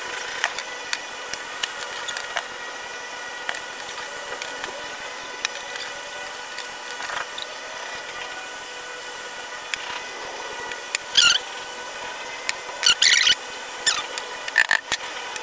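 Laser-cut plywood parts of a toy plane being pushed and fitted together by hand: scattered light clicks and taps, and short bursts of squeaking from wood rubbing on wood, three of them in the second half. A steady hum runs underneath.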